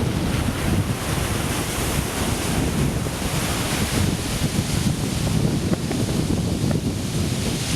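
Pacific Ocean surf breaking and rushing, with the hiss swelling midway, while wind buffets the microphone with a gusty rumble.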